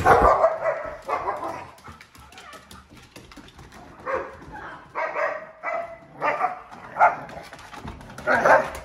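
Dogs barking in play, a string of short, separate barks about half a second apart in the middle of the stretch.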